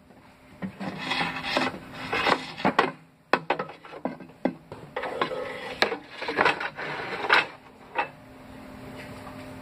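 Handling noise: things being rubbed, shifted and knocked together, with many short rustles and sharp clicks and light clatter.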